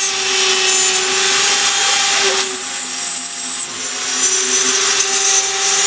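Desktop CNC router's spindle milling a frame center plate, a steady whine over the hiss of the cut. A little past two seconds in the tone shifts and a high whistle joins for about a second, then the sound dips briefly and builds back up.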